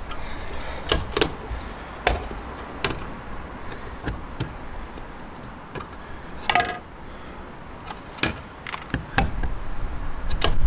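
Scattered light clicks and knocks from hands working on small electrical fittings, with a brief squeak about six and a half seconds in.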